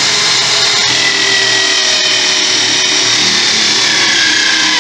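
Corded electric drill running a hole saw into a wooden desktop: a steady, loud motor whine mixed with the grinding of the saw teeth in the wood, the pitch sagging slightly under load near the end.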